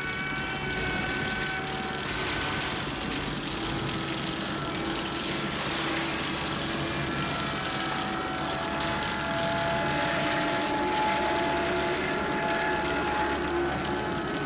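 Experimental noise piece: a dense, steady rumble and hiss with several sustained tones at different pitches that come and go over it.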